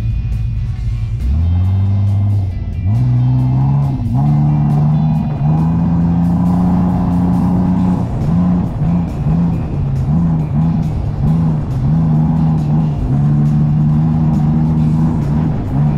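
Mitsubishi Pajero engine pulling hard across soft dune sand, its pitch climbing in steps during the first few seconds, then holding steady. In the middle it wavers up and down for a few seconds before steadying again.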